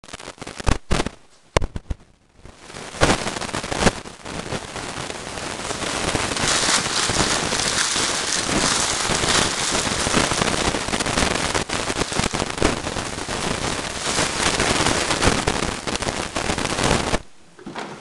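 Clear plastic wrapping crinkling and rustling as an RC boat hull is pulled out of its bag and box. A few sharp clicks come in the first two seconds, then a dense crackle runs until just before the end.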